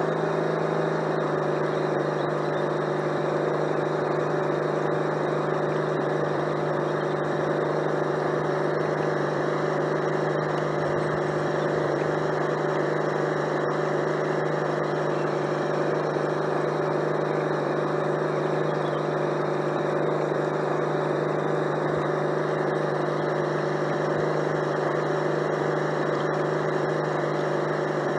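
Steady, unchanging engine-like hum of a radio-controlled model DUKW amphibious truck under way on the water, heard from on board the model.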